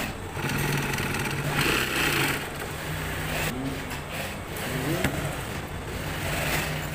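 Industrial sewing machine's motor humming steadily, starting about half a second in, with scraping and rustling as the leather glove and its paper backing are handled.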